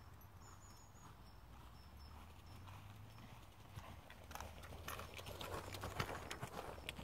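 Hoofbeats of a ridden horse on the arena surface, faint at first and growing louder from about four seconds in as the horse passes close by.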